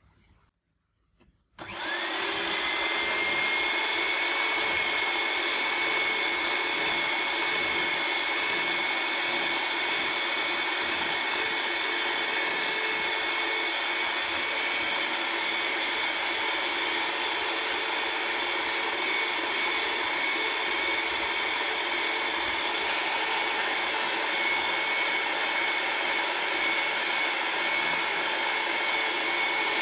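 Electric hand mixer switching on about a second and a half in, its motor quickly rising to a steady high whine as the beaters whip raw eggs in a glass bowl.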